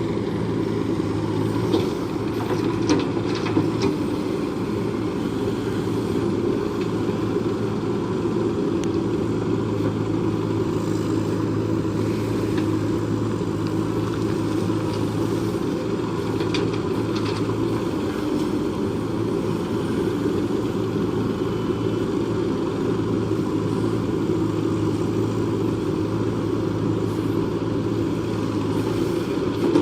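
Heavy diesel engine of earth-moving equipment running steadily at a constant pitch, with a few faint light clanks.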